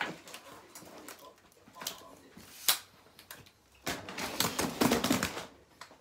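Handling noise from a camera tripod being gripped, moved and set down close to the microphone: scattered clicks and knocks, one sharp knock about halfway through, and a longer stretch of rustling and bumping near the end.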